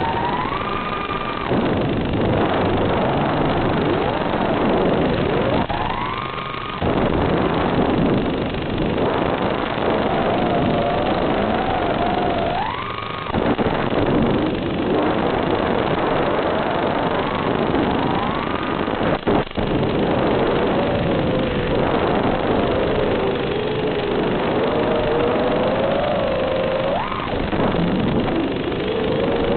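FPV quadcopter's brushless motors and propellers whining, the pitch rising and falling with throttle, with several sharp upward sweeps on throttle punches, over a steady rush of hiss. About two-thirds of the way through there is one brief sharp knock.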